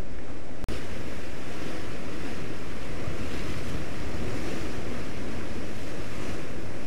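Ocean surf breaking and surging against a volcanic rock shore, a steady roar, with wind buffeting the microphone. The sound drops out for an instant less than a second in.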